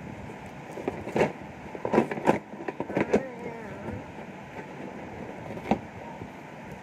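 A few sharp knocks and clicks over a steady background hiss, the loudest about two seconds in and another near the end, as things are handled close to the microphone.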